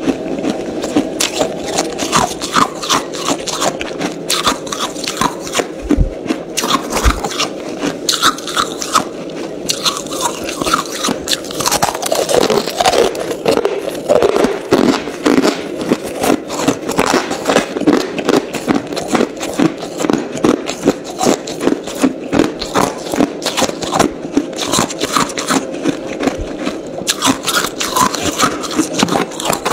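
Ice being chewed in the mouth close to the microphone: a steady run of crisp crunches, several a second.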